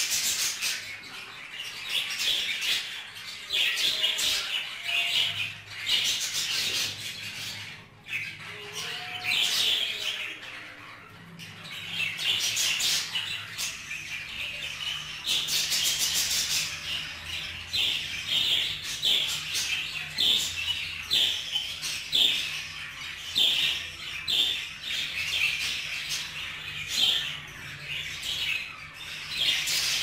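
Budgerigars chirping and chattering: a near-continuous run of quick, high chirps and squawks.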